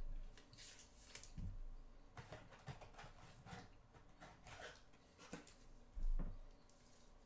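Trading cards and hard plastic card holders being handled on a tabletop: faint scattered clicks and light rustling scrapes, with a couple of soft low thumps, the loudest about six seconds in.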